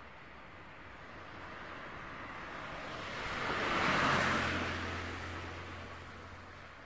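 Street traffic, with a vehicle passing close by: its tyre and engine noise swells to a peak about four seconds in, then fades away. A low engine hum lingers after it passes.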